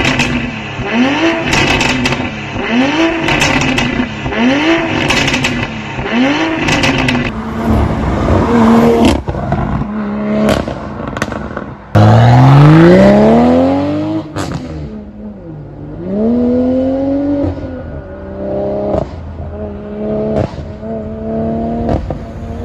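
BMW 840i's B58 3.0-litre turbocharged inline-six through an iPE valved exhaust with the valves open, blipped repeatedly about once a second while stationary. About twelve seconds in comes the loudest part, a hard acceleration with the engine note rising, dropping back at each upshift and rising again.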